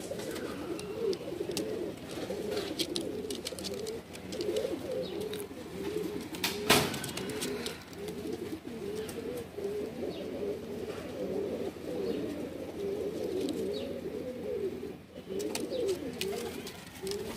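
Domestic pigeons cooing without a break, a low warbling coo that rises and falls. A single sharp knock comes about seven seconds in, with light scattered clicks around it.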